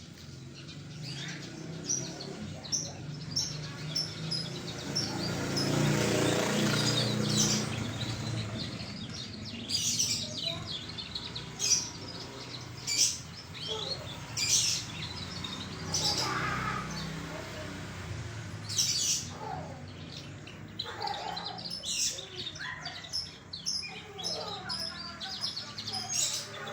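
Domestic canary singing: a run of bright, high chirps and short trills.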